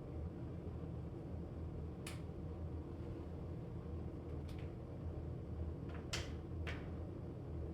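A steady low hum with four short, sharp clicks: one about two seconds in, one midway, and two close together near the end.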